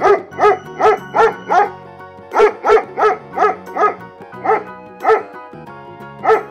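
A dog barking repeatedly over background music: two quick runs of about five barks each, then three single barks spaced further apart.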